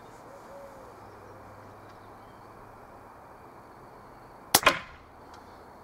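A .177 Zbroia Hortitsia pre-charged pneumatic air rifle firing once, about four and a half seconds in: a sharp crack with a second crack a fraction of a second after it.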